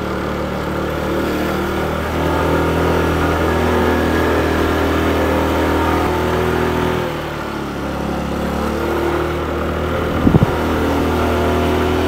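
Motorbike engine pulling hard up a steep hill with a passenger aboard. The engine note dips about seven seconds in, then climbs again, with a short sharp knock about ten seconds in.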